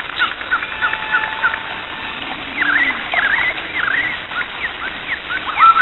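Birds chirping: many short, quick calls that sweep up and down, several a second, over a steady hiss.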